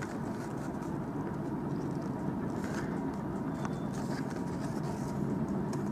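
Steady low background rumble, with a few faint light clicks around the middle.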